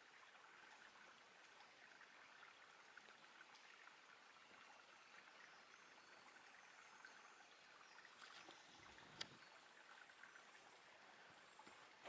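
Faint, steady splashing of a thin waterfall running down a rock face into its plunge pool, with a single sharp click about nine seconds in.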